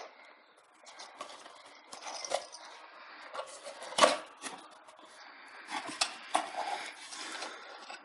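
A boxed CPU cooler being handled and unpacked: cardboard and plastic packaging rustling, with irregular sharp knocks and clicks, the loudest about four seconds in.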